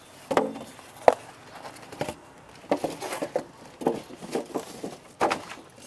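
Scattered light knocks and clatter, about eight at uneven intervals, from welding machines being handled and set in place.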